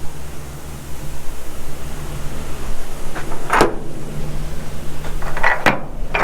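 Grain truck's engine running steadily, with two sharp clunks about halfway through and again near the end.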